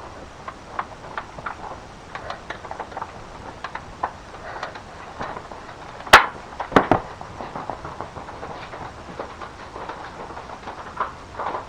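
Scattered small clicks and taps, with two sharp, loud clicks a little under a second apart about six seconds in.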